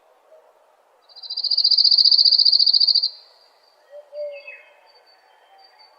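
A songbird singing a loud, rapid high trill lasting about two seconds, followed by fainter short chirps and calls over a soft background hum.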